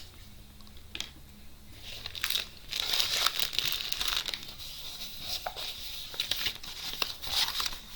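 Packaging crinkling and rustling as it is handled, quiet at first and then dense and continuous from about two and a half seconds in.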